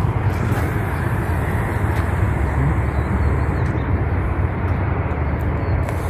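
Steady, low rumbling noise with no distinct events.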